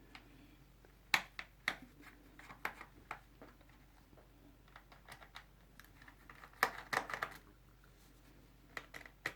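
Sharp clicks and taps of a screwdriver working on the plastic base of a laptop as its screws are undone, coming in small clusters with pauses between.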